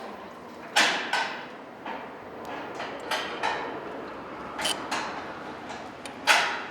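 About seven sharp, irregular knocks and clicks as a gasketed octagon cover and its screws are fitted onto an electrical ceiling fan box, the loudest about six seconds in.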